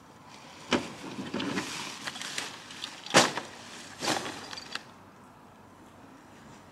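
A wild boar rummaging in plastic rubbish bags at wooden bin enclosures: rustling and crackling plastic with a few sharp knocks, the loudest about three seconds in, dying away after about five seconds.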